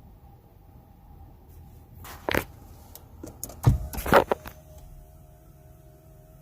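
A few sharp knocks and clatters, loudest about two seconds in and again around four seconds in, over a faint steady hum.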